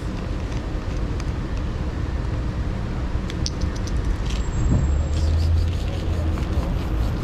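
Steady low rumble of street traffic, swelling for a couple of seconds past the middle, with a few light clicks.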